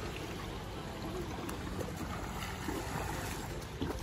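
Steady splashing and lapping of shallow pool water as children wade and swim, with a low rumble underneath.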